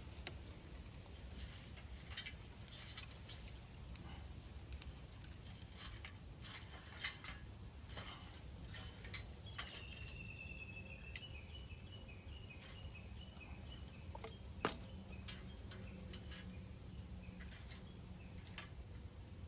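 Irregular light clicks and taps, as of small objects or kindling being handled, over a low steady background hum. About ten seconds in, a bird calls: a short run of high chirping notes that falls and then repeats for a few seconds.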